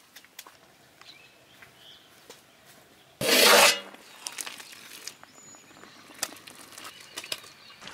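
A short, loud rush of water poured into an aluminium pot of simmering tomatoes and cashews, about three seconds in, followed by scattered light clicks of a metal ladle against the pot.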